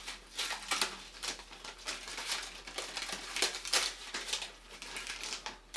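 Brown packing paper crinkling and tearing as it is pulled open by hand around a cardboard parcel, a quick irregular run of rustles and rips.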